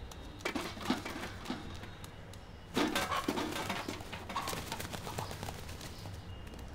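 A rooster being shooed off a kitchen counter: scuffling and scattered knocks on the counter and stove, with a louder flurry of wing flaps about three seconds in.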